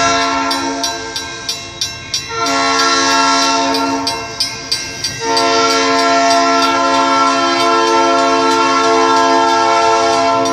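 Diesel locomotive's air horn blowing long blasts for the grade crossing, a chord of several notes, with breaks just after the start and about four to five seconds in, then one long blast to the end. In the gaps a crossing-signal bell dings about three times a second.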